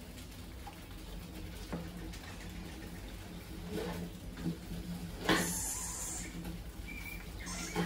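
Rats scrabbling and moving about on the wire-mesh top and glass walls of a trap box, with scattered light scratches and clicks over a steady low hum. About five seconds in comes a loud scuffling burst lasting just under a second, and near the end a brief high squeak.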